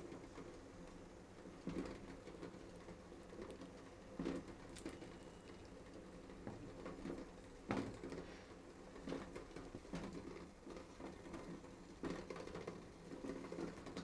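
Quiet kitchen handling: a knife cutting through a soft baked sweet potato and knocking lightly on a wooden cutting board, with several soft knocks scattered through. A steady low hum runs underneath.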